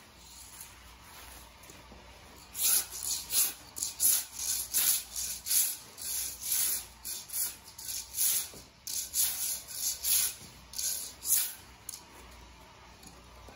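Metal floor scraper scraping dried carpet-pad glue off the floor in quick repeated strokes, about two a second, starting a couple of seconds in and stopping shortly before the end.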